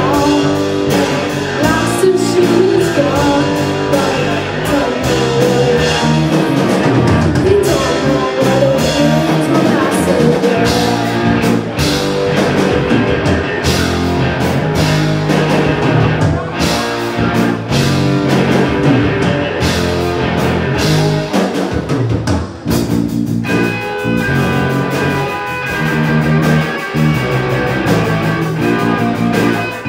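A boys' rock band playing live: two electric guitars and a drum kit, with a boy singing into a microphone. About 23 seconds in the band briefly drops away, then comes back in with the guitars in front.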